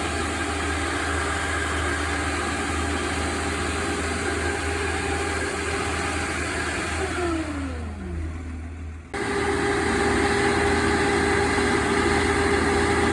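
An engine running steadily, then winding down with its pitch falling steeply about seven seconds in. After an abrupt cut, a different steady engine hum with one strong tone.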